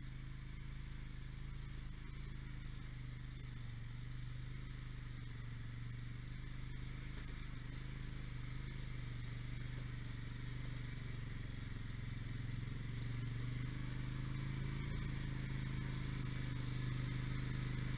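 Quad (ATV) engine running steadily while towing a loaded log trailer along a bush trail, growing gradually louder as it comes closer.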